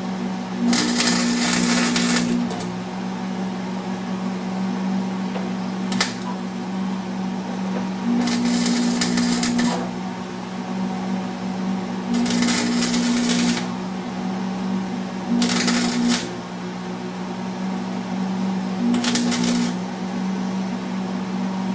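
Wire-feed welder laying short tack welds blind on the rusty fender brace: five separate bursts of arc crackle, each one to two seconds long, with a steady low hum underneath.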